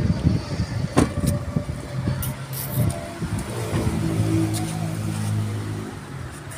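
A car door shuts with a sharp thud about a second in, then a vehicle engine runs with a steady low hum that fades out near the end.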